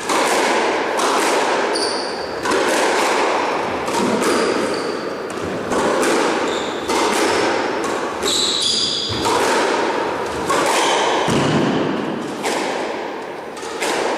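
A squash rally: the rubber ball cracking off rackets and the walls of the court, sharp hits about once a second, each ringing on in the court's echo. Short high squeaks of court shoes on the wooden floor come in between the hits.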